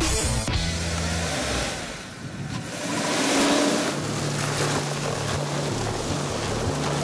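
Pickup truck on Track N Go rubber track units driving through snow: its engine running and the tracks churning snow, swelling louder about three seconds in.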